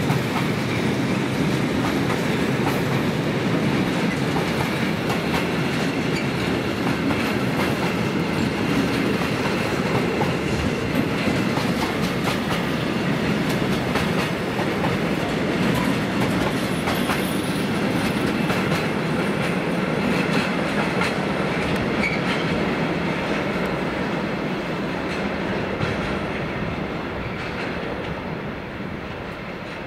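Freight train of bogie tank wagons rolling past, their wheels running steadily on the rails; the sound fades over the last few seconds as the train moves away.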